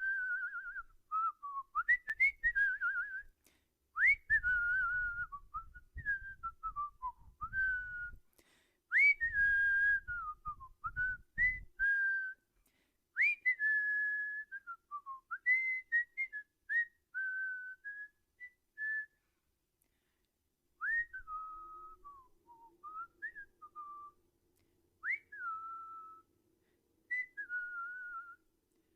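Human whistling: a string of short whistled phrases, many opening with a quick upward swoop and then sliding down, with pauses between them.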